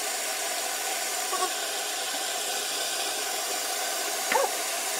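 Electric kettle heating water, giving a steady hiss.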